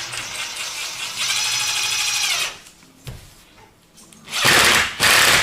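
Cordless drill-driver driving self-tapping screws into chipboard furniture panels: the motor whines steadily for about two and a half seconds, then after a short pause a louder, noisier run of the driver near the end.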